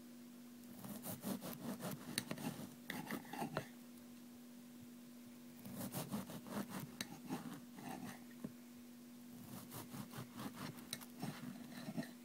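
Serrated bread knife sawing through a wholemeal loaf in three bursts of quick back-and-forth strokes, with a steady hum underneath.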